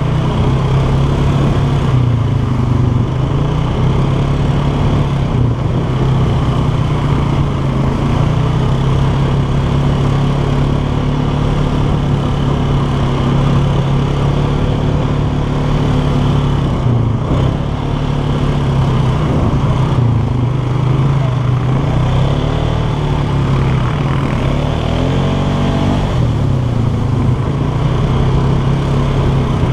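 ATV engine running steadily under way, its pitch rising and falling with the throttle several times near the end.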